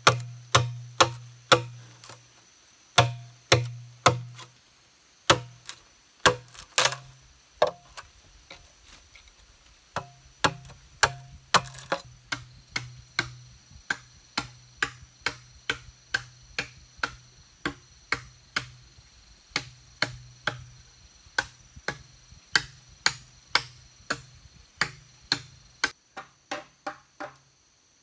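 A machete chopping into a green bamboo tube, about two blows a second, each with a short hollow ring from the tube. The chopping breaks off briefly about a third of the way in.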